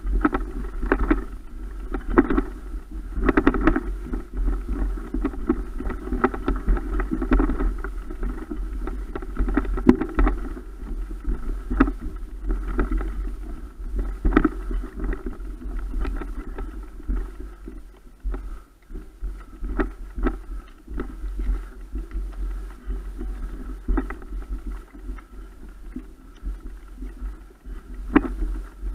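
Rumble and handling noise on an action camera carried up a steep dirt climb by a rider pushing a mountain bike, with irregular knocks, clicks and rattles from the bike and the walking.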